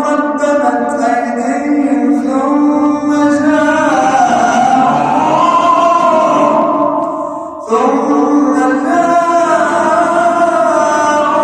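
A man's voice reciting the Quran in the melodic, drawn-out tajwid style, holding long ornamented notes that glide up and down, with a brief breath break about seven and a half seconds in before the chant resumes.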